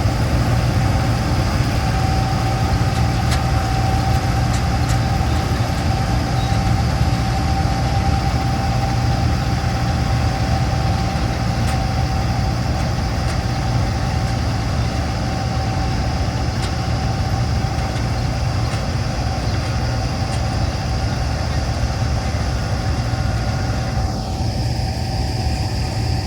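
Balkar 654 4x4 combine harvester running steadily: a constant low engine hum with a steady whine over it. Near the end, part of the higher sound falls in pitch and drops away.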